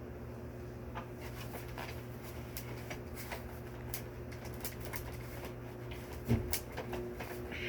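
Scattered light clicks and taps of vacuum cleaner parts and small hardware being handled during assembly, with one louder knock about six seconds in, over a steady low hum.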